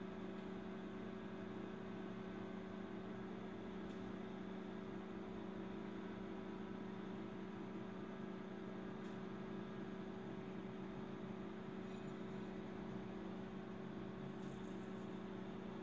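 A steady low electrical hum made of two held tones, with a few faint ticks.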